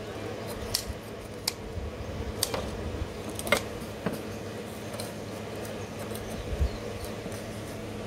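Knives and scissors working on small fish on a cutting board: a handful of sharp clicks and scrapes, over a steady low background noise.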